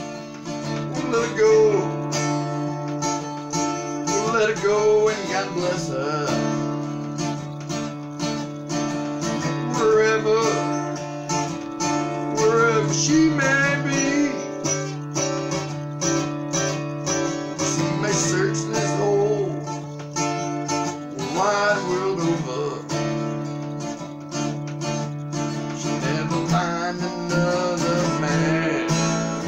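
Acoustic guitar played steadily, strummed chords ringing on, with a wavering melody line over them at times.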